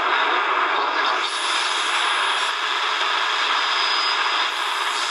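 Shortwave static and hiss from a Tecsun DR-910 portable radio's small speaker as it is tuned across the 49-metre band between stations, with no clear station audio.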